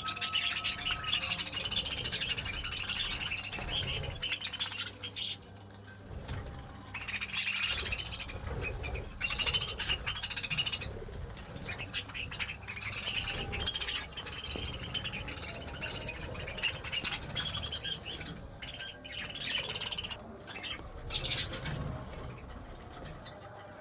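Flock of pet birds, budgerigars among them, chattering and chirping in bouts of a few seconds with short lulls between.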